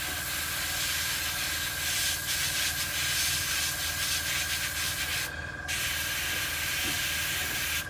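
Airbrush spraying paint: a steady hiss of air and paint, broken by a short pause about five seconds in. A steady faint high tone runs underneath.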